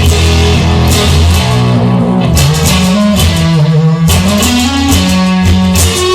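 Instrumental band music led by guitar, with strummed chords over a moving bass line and a steady beat.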